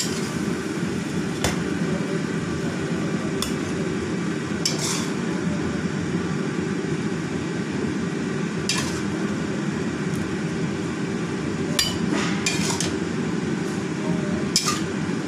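Metal spatula scraping and clinking against a wok as stir-fried taro stems are scooped out onto a plate, in short strokes every second or two. A steady low hum runs underneath.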